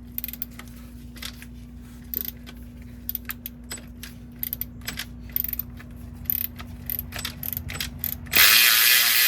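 Hand ratchet wrench clicking in short, irregular runs while working the bolts of a clutch slave cylinder bracket, over a steady low hum. Near the end a loud, steady hiss starts and drowns out everything else.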